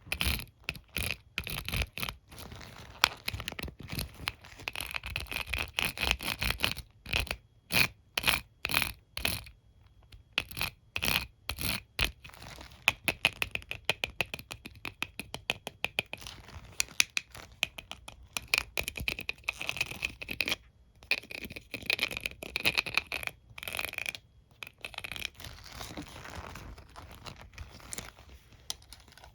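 Close-up ASMR scratching and stroking of a hairbrush's bristles: rapid runs of short scratchy strokes with brief pauses between runs, softer near the end.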